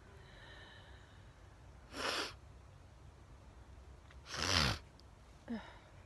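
A person sneezing: a sharp sneeze about two seconds in, then a louder one with a falling voiced tail about four and a half seconds in, followed by a brief falling voiced sound.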